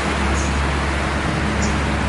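Highway traffic going by: a steady rush of tyre and road noise over the low, steady hum of a large vehicle's engine.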